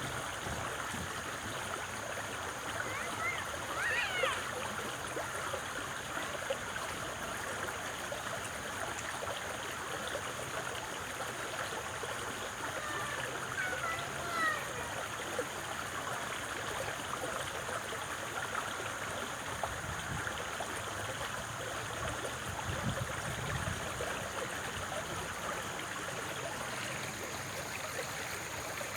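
Flowing stream water, a steady even rush and babble. A few faint brief high sounds rise above it about four seconds in and again around fourteen seconds.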